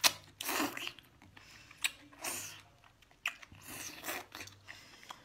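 A person biting into and chewing a whole sauced octopus: a series of short, irregular, wet mouth noises.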